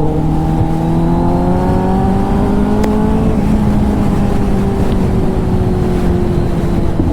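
Kawasaki ZX-10R's inline-four engine breathing through an SC-Project titanium exhaust, running steadily under way in one gear. Its pitch climbs gradually for about three seconds, then slowly eases off.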